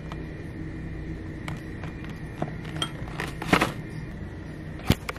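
Steady store background hum with a faint high tone, broken by a few light knocks and clatters, the loudest a little past three and a half seconds and near five seconds.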